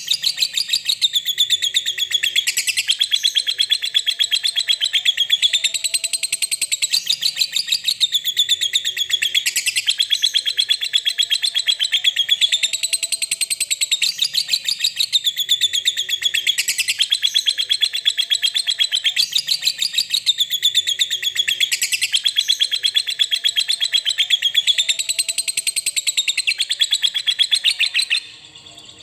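Lovebird's long 'ngekek' song: a fast, unbroken, high-pitched chatter that swells and eases in waves every few seconds, then cuts off suddenly near the end.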